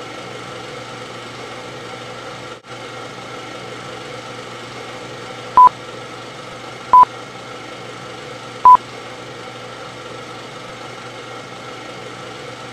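Film-countdown-leader sound effect: a film projector's steady mechanical whir with a hum, cutting out for an instant a few seconds in, and three short, loud, high beeps about a second and a half apart, marking the countdown numbers.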